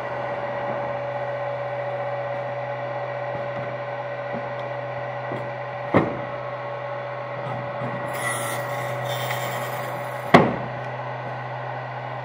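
Automated gantry machine with a pneumatic gripper running with a steady hum and a held whine. Two sharp clacks, about six and ten seconds in, and a short hiss of air between them.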